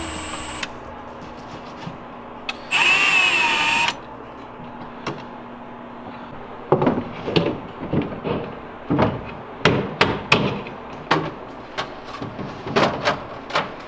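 A cordless drill runs for about a second, its pitch wavering, then a string of sharp knocks and clunks as a drawer-style storage unit is fitted into a cabinet shelf.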